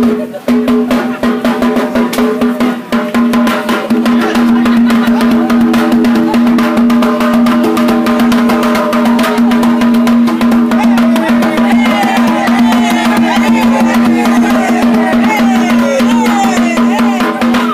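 Djembe hand drum played with bare hands in a fast, dense run of strokes, over a steady held droning tone. Crowd voices rise in the later half.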